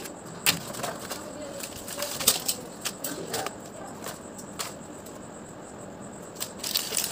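Foil-and-plastic blister packs of tablets handled and shuffled by hand on a table: irregular crinkling and crackling with scattered sharp clicks, a cluster of louder crackles near the end.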